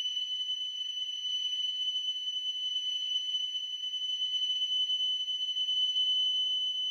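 A steady high test tone from a 3000 Hz speed-calibration tape, played by a Fisher-Price kids' cassette player through its small speaker. It sounds at about 2812 Hz instead of 3000, a sign that the tape is running slow.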